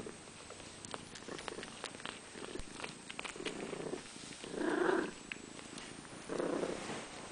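Cat purring close up, in rough swells of about half a second that rise and fall with its breaths, the loudest about halfway through, with scattered light clicks.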